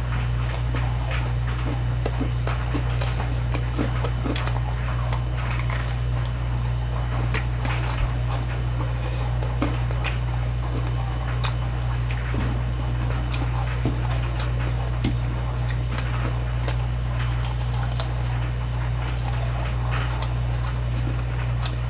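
People chewing and eating, with many small scattered clicks and squishy mouth sounds, over a steady low hum.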